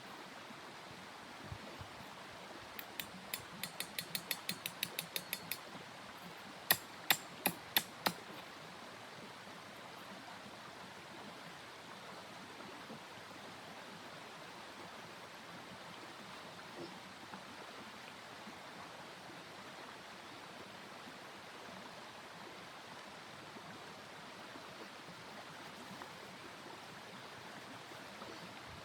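A run of quick mechanical clicks, about five a second, followed by five louder, slower clicks, over a steady rushing hiss.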